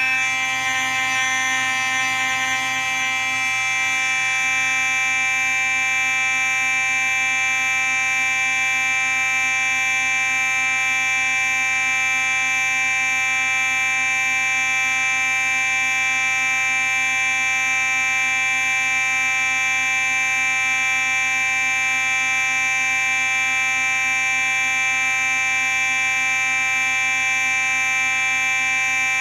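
Simplex 4903-9838 fire alarm sounding one steady, unbroken tone rich in overtones, wavering slightly during the first few seconds.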